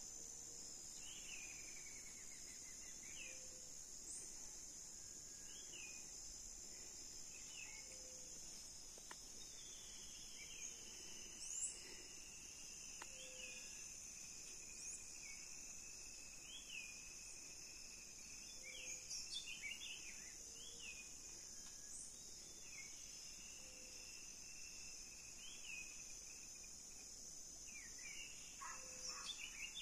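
Faint outdoor insect drone, a steady high-pitched hum, with scattered short bird chirps. A long, slowly falling high tone runs through the middle of the clip, and faint low notes recur every second or two.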